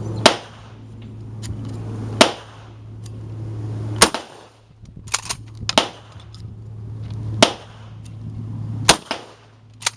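Gunshots fired one after another, about seven loud reports roughly every one and a half to two seconds, with a couple of fainter cracks about five seconds in.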